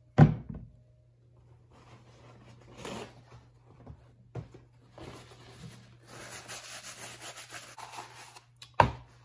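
Toyota oil filter housing cap knocked down on cardboard, then rubbed and wiped clean with a paper towel for several seconds, with a second knock near the end as it is set down again.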